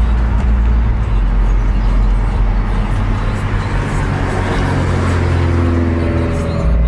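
Steady low rumble of a car's engine and running noise heard from inside the cabin.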